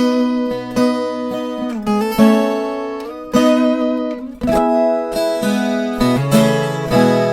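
Viola caipira, the Brazilian ten-string folk guitar, playing an instrumental moda de viola: picked melody notes and strummed chords, with a brief lull before a strong chord about four and a half seconds in.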